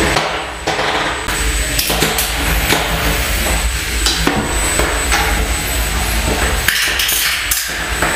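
Small combat robots knocking and clattering against each other and the arena walls: repeated sharp knocks over a steady mechanical noise.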